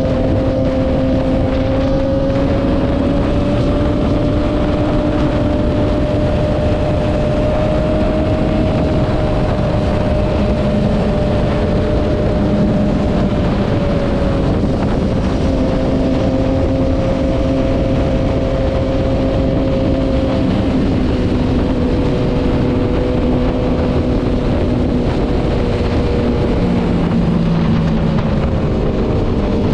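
Sport motorcycle engine cruising at a steady speed, a continuous drone whose pitch drifts slightly and dips now and then. Rushing wind and road noise run heavily underneath.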